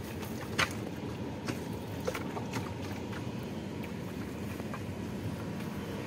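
Handling of a cast net and its catch in a wooden boat: a sharp knock about half a second in, then a few light taps, over a steady low rumble.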